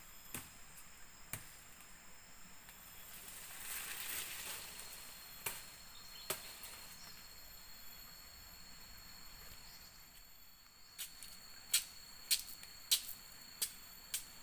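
Sharp chopping strikes of a blade on a young palm stem, scattered at first, then a quicker run of about five near the end. A brief rustle of leaves comes about four seconds in, and insects keep up a steady high drone behind.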